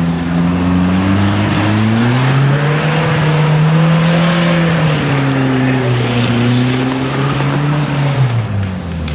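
Off-road 4x4's engine revving under load: its pitch climbs over the first few seconds, holds high, then drops away near the end.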